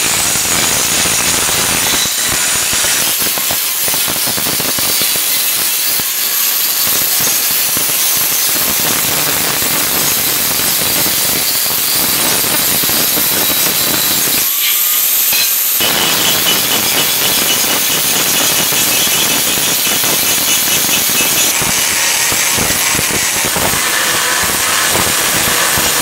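Handheld angle grinder running with its disc grinding the rusted steel blade of a grub hoe: a loud, continuous, high-pitched grinding over the motor's steady whine. A little past halfway the grinding lets up for about a second, then resumes.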